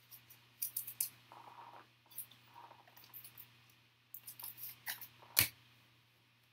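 Foil wrapper of a football card pack crinkling while trading cards are slid and flicked against each other. A run of quick, crisp rustles and clicks, with one sharp snap about five and a half seconds in.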